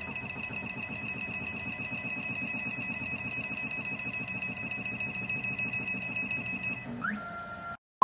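CNC key cutting machine's motors running with a steady high whine and a quick regular pulsing as the machine probes an original key to read its cut depths and positions. About seven seconds in, the pulsing stops and a quieter tone rises and then holds steady.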